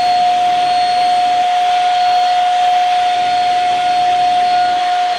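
Shark Rocket stick vacuum running with its hose attachment: a steady high motor whine over the rush of air through the hose.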